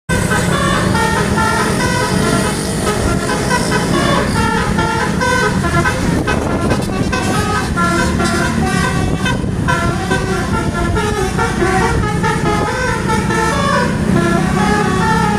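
Indonesian bus 'telolet' musical air horn playing a rapid tune of short stepped notes, changing pitch every fraction of a second and going on without a break, over a steady low drone.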